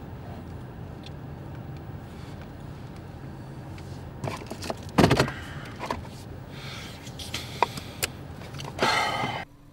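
Inside a car: a steady low hum, then knocks and clicks in the second half, the loudest about five seconds in, and a short rush of noise that cuts off near the end.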